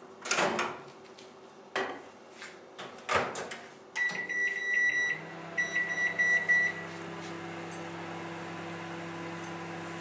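Microwave oven being loaded and started: a few sharp knocks and clunks as the bowl goes in and the door is shut, then keypad beeps, one longer and a quick run of short ones, and the oven starts running with a steady low hum.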